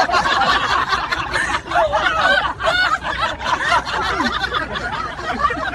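Several people chuckling and snickering.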